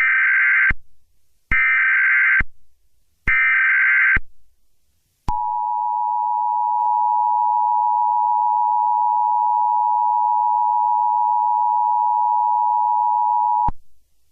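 Emergency Alert System tones: three short bursts of the SAME data header, a rapid warbling buzz, each under a second, then about five seconds in the two-tone attention signal, a steady dual tone held for about eight seconds before it cuts off suddenly.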